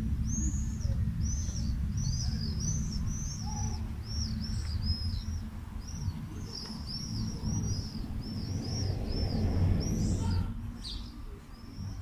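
Small birds chirping over and over, a quick run of short, high arched chirps, about three a second, over a low rumble.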